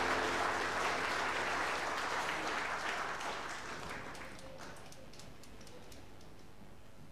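Theatre audience applauding, the applause dying away over about four seconds and leaving a few scattered claps.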